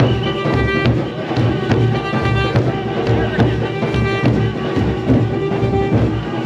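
Junkanoo parade band playing, with drums keeping a pulsing beat under held horn notes.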